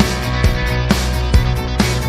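Background rock music with distorted guitar and a steady drum beat, about two beats a second.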